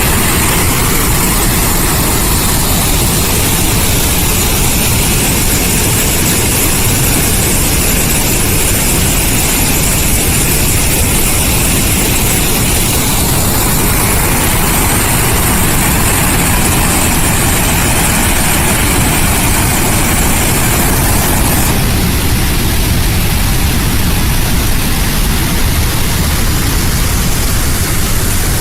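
Loud, steady rush of a huge volume of water discharging from the Summersville Dam outlet during a flood release. The tone shifts slightly about halfway through and again about two-thirds of the way in.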